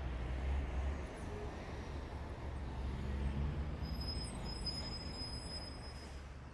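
City street traffic noise: a steady low rumble of passing vehicles, with a thin high whine for about two seconds near the end.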